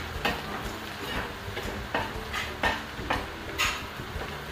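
Metal spoon scraping and clinking against a stainless steel pan in irregular strokes about every half second, as chopped ginger, onion and garlic are stirred in hot oil, with a light sizzle underneath.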